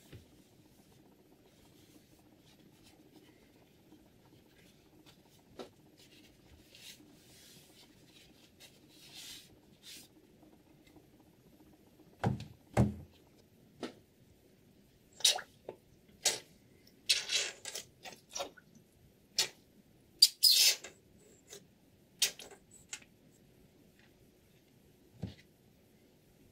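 Guided knife sharpener being handled and worked: scattered clicks and knocks, two heavier knocks a little past twelve seconds in, then a run of short scrapes and clicks over the second half, over a faint steady hum.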